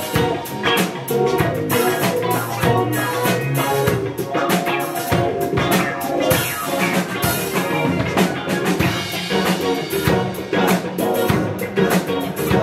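A live rock band plays an instrumental passage, led by a drum kit with a steady beat and an electric bass guitar.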